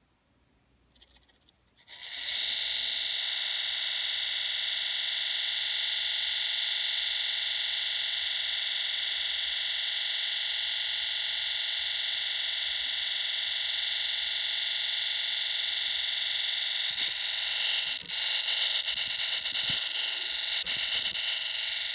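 Left cooling fan of a 2017 MacBook Pro with Touch Bar making a loud, steady, high-pitched grinding whine that starts abruptly about two seconds in and turns rougher and crackly near the end. The fan sits too far down and its blades are hitting the casing.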